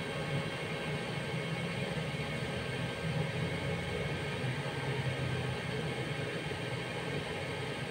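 Stick welding machine humming steadily, a low buzz with hiss over it.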